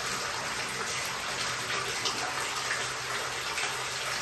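Water pouring steadily from a bathtub tap into a clawfoot tub as it fills.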